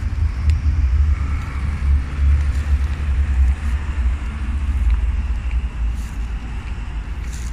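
Low, uneven rumble of road traffic on a city street.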